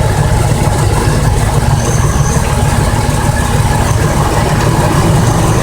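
1998 Ford Expedition's V8 idling steadily, running smoothly now that the vacuum leak behind its P0171 lean code has been bypassed with new hose.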